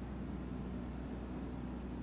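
Steady low hum with a faint hiss: background room tone, with no distinct sound event.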